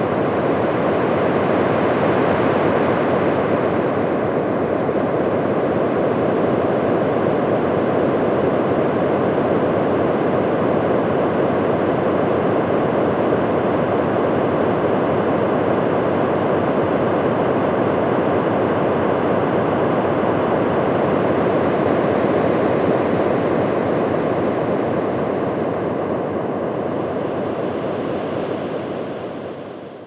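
Air rushing past the Huygens probe during its parachute descent through Titan's atmosphere, picked up by its acoustic sensor: a loud, steady rushing noise that fades away over the last few seconds.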